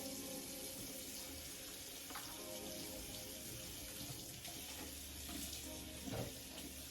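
Water running steadily from a tap into a sink, with faint background music.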